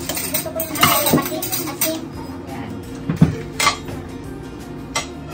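Tableware clinking at a hot pot meal: metal tongs and ladles knocking against the pot and ceramic bowls as food is served, a handful of separate clinks, the sharpest about three seconds in, over steady background music.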